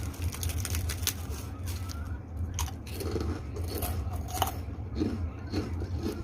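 A person biting and chewing crunchy kerupuk crackers close to the microphone: a run of sharp, irregular crunches, over a steady low hum.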